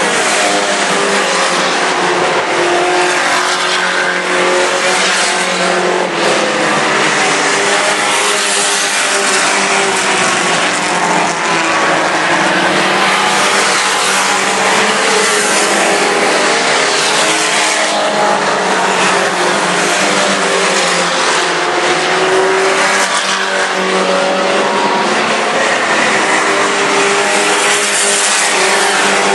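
Several mini-truck race engines running hard around a dirt oval, a steady, loud blend of engine notes that rise and fall as the trucks lap.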